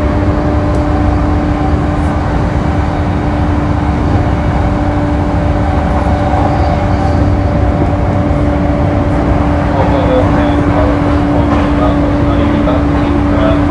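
JR East E235-series electric train running at steady speed, heard from inside the carriage: a continuous rumble of wheels on rail with a constant low hum.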